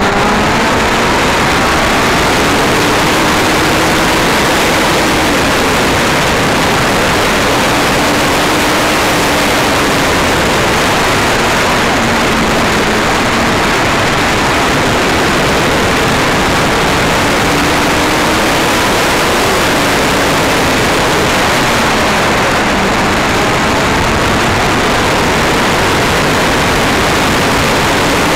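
Yamaha YZF-R1 sport bike at road speed, heavy wind rushing over the on-board microphone, with the inline-four engine's note faintly underneath, drifting up and down as the revs change.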